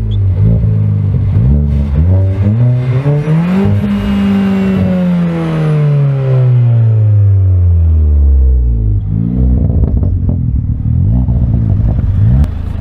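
Car engine being revved. It opens with short, quick throttle blips, then gives one long rev that climbs for a second or so and falls slowly over about five seconds. More quick blips follow, the last one cut off sharply near the end.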